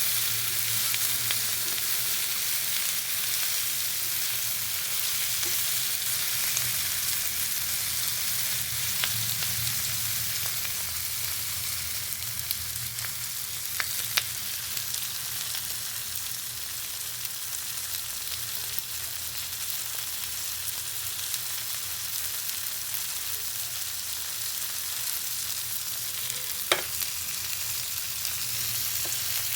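Food frying in hot oil: a steady sizzle with a couple of sharp pops, one about halfway through and one near the end.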